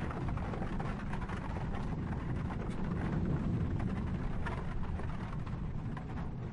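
Horse-drawn carriage moving over the road, heard from inside: a steady low rumble of the wheels with irregular rattles and clicks.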